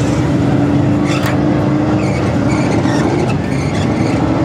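Dirt-track hobby stock race car engines running, a steady drone that holds one pitch without revving up or down.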